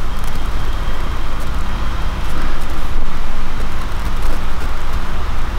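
Steady low rumble with an even hiss over it, heard inside a pickup truck's cab.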